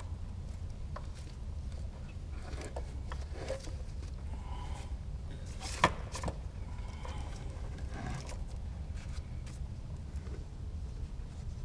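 Gloved hands working in an open engine bay: scattered light clicks, scrapes and rustles of handling, with one sharp click about six seconds in, over a steady low hum.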